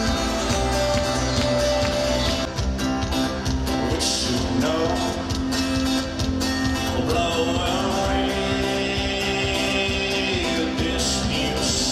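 Live band music played loud over a concert PA, with a male voice singing over acoustic guitar.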